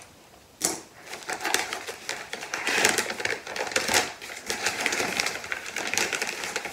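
Kraft paper wrapping crinkling and rustling as it is pulled open by hand, in an irregular crackly run that starts about a second in after a single click.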